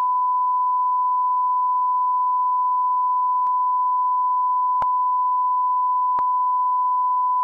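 Steady pure test tone, the television colour-bars tone, held unbroken at one pitch, with three faint clicks in the middle.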